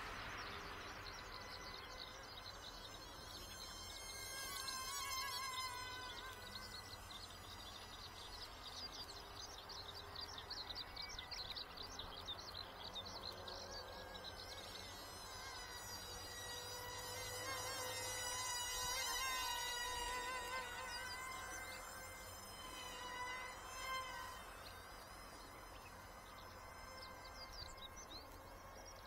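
Faint buzzing whine of a Wltoys XK A120 Airbus A380 model airliner's small electric motors flying overhead. Its pitch wavers up and down as it flies, loudest twice, about five seconds in and again near the middle. High short chirps run in the background.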